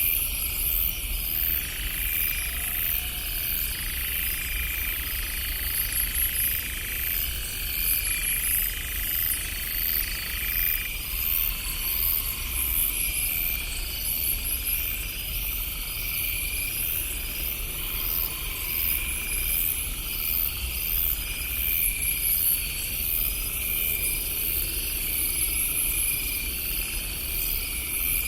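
Night insects, crickets or similar, chirping in a steady chorus of rhythmic, high-pitched pulses, over a constant low rumble.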